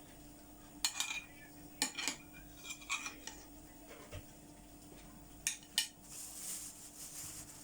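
Cutlery and dishes clinking: several sharp, ringing clinks, some in quick pairs, as a spoon or knife knocks against crockery, followed by a soft hiss near the end.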